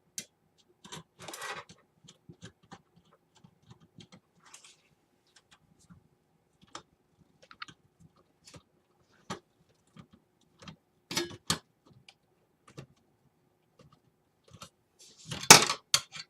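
Small metallic clicks and scrapes of screws being driven by hand into a computer case to mount a hard drive, with a short scraping stretch about a second in, two sharper knocks about eleven seconds in and a loud clatter near the end.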